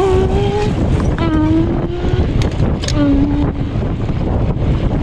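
Wind rushing over the microphone of a fast-moving bicycle. Over it a voice calls out three drawn-out held notes in the first three and a half seconds.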